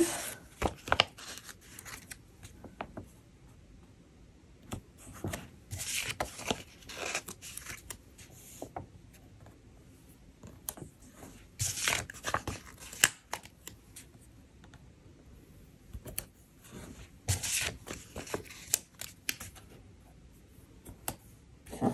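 Paper planner stickers being peeled off a sticker sheet and pressed down onto planner pages: several short crackly bursts of peeling and rubbing, with light taps and paper handling between them.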